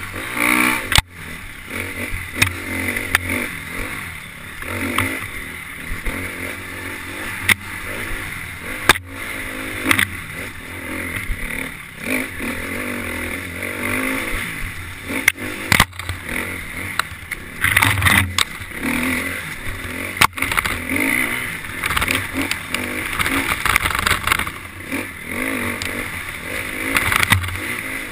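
KTM 350 XC-F's four-stroke single-cylinder dirt bike engine, its pitch rising and falling with the throttle as it is ridden hard. Frequent sharp knocks and clatter come through over the rough trail.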